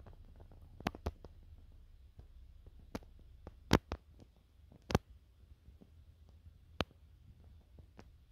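Irregular sharp clicks and knocks, with two louder ones near the middle, over a steady low hum.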